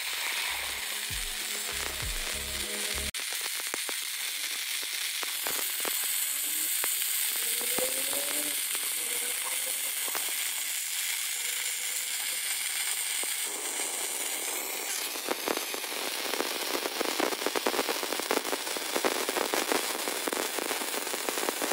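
MIG/MAG welding arc from a 160 A welder crackling steadily as it lays a bead on the thick hardened steel plate of a mini-excavator bucket. The crackle grows denser and louder in the last third.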